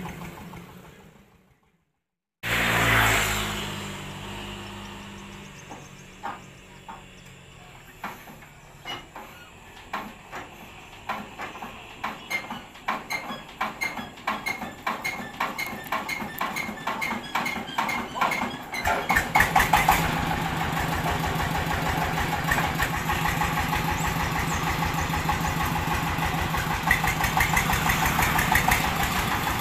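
Diesel engine of a mobile rice-mill vehicle being hand-cranked: slow, separate thuds come faster and louder as the flywheel spins up. About two-thirds of the way in the engine fires and catches, then runs steadily.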